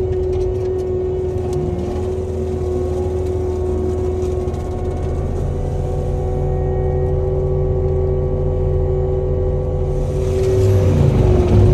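Cat 299D3 skid steer's diesel engine and forestry mulcher head running steadily under load, a steady tone over a low drone.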